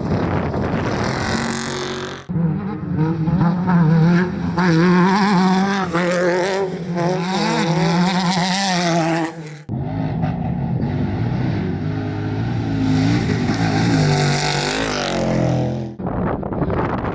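Off-road desert race vehicles' engines running hard at high revs as they pass, the pitch wavering up and down. Several short clips are cut together, so the sound changes abruptly three times.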